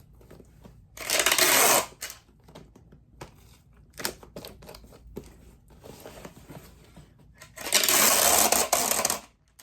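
Packing tape pulled off a roll to seal a small cardboard shipping box: two loud, noisy pulls of about a second each, roughly six seconds apart, with small clicks and rustles of cardboard between them.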